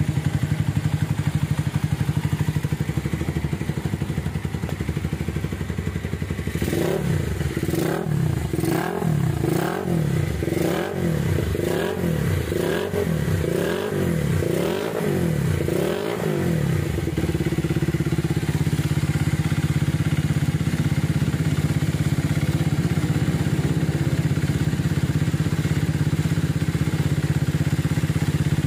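Minerva R150 motorcycle engine idling, then blipped about ten times in a row, roughly once a second, before settling back to a steady idle. It has just been fitted with a new piston, rings and camshaft, and the running is smooth.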